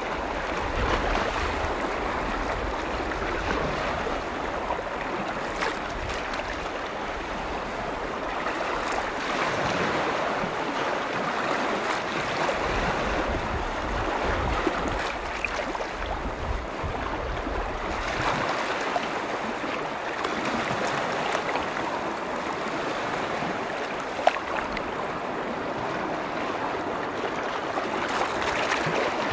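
Freshwater lake waves washing and lapping against a shore, a steady rushing wash that rises and falls gently. A low wind rumble on the microphone drops away partway through, and a single sharp click comes near the end.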